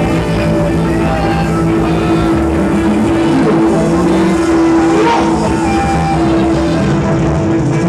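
Live band playing loudly and steadily on stage: amplified acoustic guitar with drums and saxophone, and a long note held under the music.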